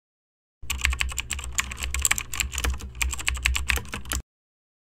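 Typing sound effect: a quick, dense run of key clicks that starts about half a second in and cuts off abruptly a little before the end, with a low hum under it, as the title text types itself onto the screen.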